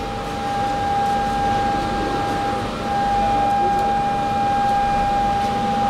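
A steady, unchanging high-pitched whine held at one pitch over a low, noisy machinery rumble.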